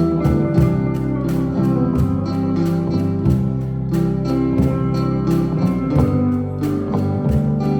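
Music with a steady beat, with guitar prominent.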